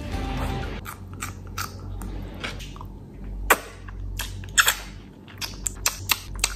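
Close-up mouth sounds of a person chewing a bite of fried duck eaten by hand, then wet smacks and sharp sucking clicks as she licks her fingers, several of them in quick succession in the second half.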